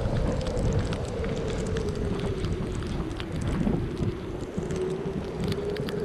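Strong winter wind gusting and buffeting the microphone, with a steady, slightly wavering drone of wind howl over it.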